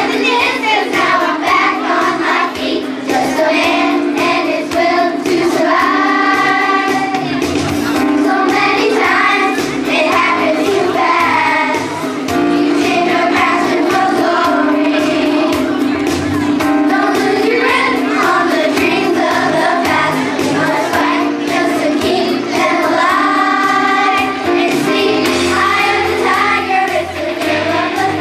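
A children's choir singing a song together, with musical accompaniment.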